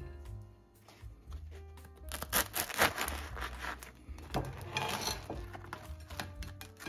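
Soft piano music with two longer scraping, rubbing sounds of kitchen work on bread, about two seconds in and again about four and a half seconds in.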